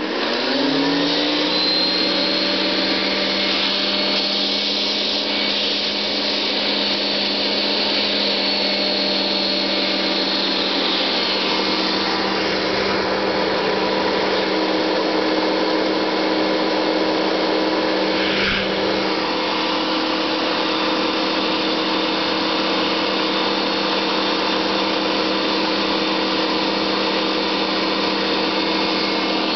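Hoover Convertible upright vacuum cleaner switched on in hose mode with the converter fitted. Its motor spins up within the first second, then runs steadily with a hum and an airy hiss, and there is a brief knock about 18 seconds in. It gives little suction in this mode.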